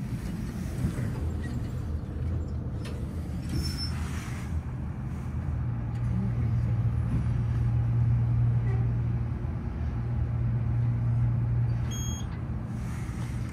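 Schindler roped hydraulic elevator running as the car travels up, a steady low hum that swells in the middle of the ride and eases near the end. A short electronic beep sounds about three and a half seconds in, and another beep sounds near the end as the car arrives.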